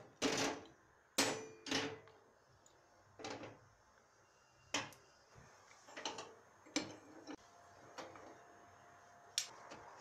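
Metal pan-support grates and burner caps of a gas hob clattering as they are lifted off and set down: about ten separate clacks and knocks, the loudest in the first two seconds.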